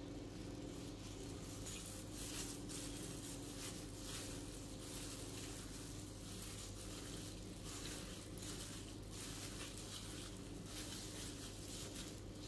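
Plastic-gloved hands kneading sliced raw beef in bulgogi marinade in a glass dish: irregular wet squishing of the meat and liquid, with rustling of the plastic gloves.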